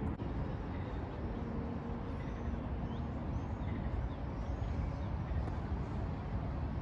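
Steady low rumble of distant city traffic, with a few faint high bird chirps from about two seconds in.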